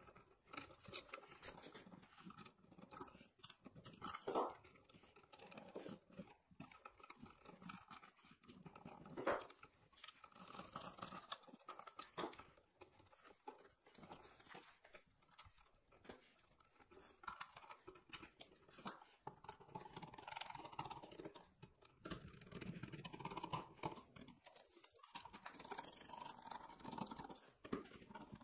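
Faint, scattered clicks, scrapes and rustles of hands working on a wall receptacle: wires bent onto its terminal screws, the receptacle pushed into its plastic electrical box, and the cover plate screwed on. A couple of sharper clicks come about 4 and 9 seconds in.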